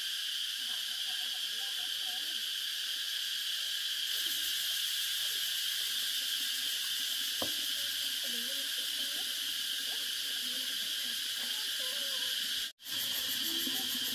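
Steady chorus of insects, an even high-pitched buzz that does not let up, with faint wavering sounds underneath. The sound drops out completely for an instant near the end.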